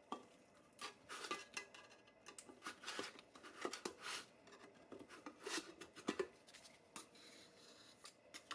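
Hand tools and small metal parts being handled on a bench: an irregular run of clicks, clinks and short scrapes, busiest in the middle and thinning out near the end.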